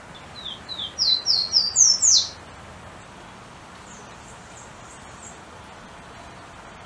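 Golden-crowned warbler (pula-pula) singing one song: a run of about eight short, clear whistled notes that climb step by step in pitch and grow louder, ending on the highest and loudest note. A few faint high notes follow a couple of seconds later.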